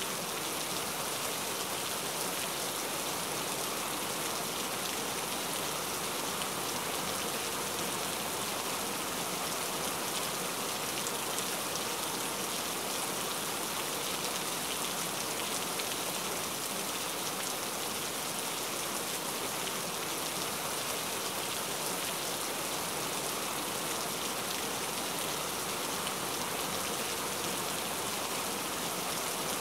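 Rain ambience: steady rainfall, an even hiss that does not change.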